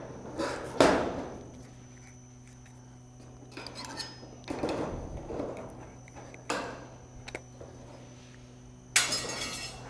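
Tin snips cutting and clicking on thin steel barge capping flashing, with sharp metallic clanks as the sheet is handled against the roof ribs; a longer sheet-metal clatter near the end.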